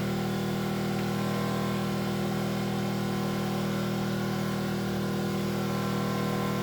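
Enkeeo SC2300i 79cc four-stroke OHV inverter generator running steadily under load, powering a 1500-watt heater drawing about 1,260 watts. The engine note holds a constant pitch with no revving or dips.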